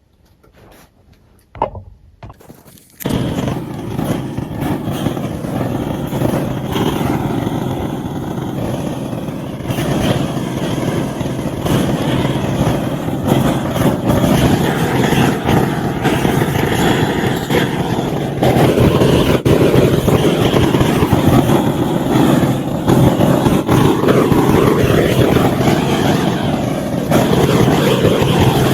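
Petrol chainsaw carving wood. It comes in abruptly about three seconds in after a brief knock, runs steadily, and grows louder in steps about ten and eighteen seconds in.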